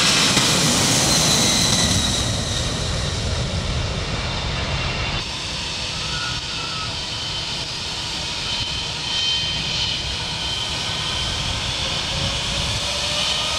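McDonnell Douglas DC-10 jet engines running loud as the trijet rolls down the runway, fading over the first few seconds. After an abrupt cut, the quieter steady whine of an MD-80-series twinjet's tail-mounted engines as it taxis past, with a rising whine near the end.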